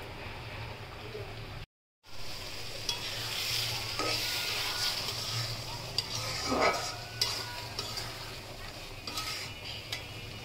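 Thick prawn curry sizzling and bubbling in a metal wok while a metal spatula stirs it, with scrapes and short clinks of the spatula against the pan. The sound cuts out completely for a moment about two seconds in.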